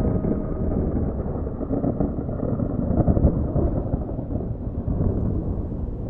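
Wind buffeting the microphone: a rough, gusting low rumble. A held note of background music fades out about half a second in.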